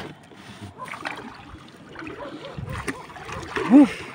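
Water splashing and sloshing against a small wooden outrigger boat as a fishing net is worked over the side, with low voices in the background. Near the end, a short loud voice call rises and falls in pitch.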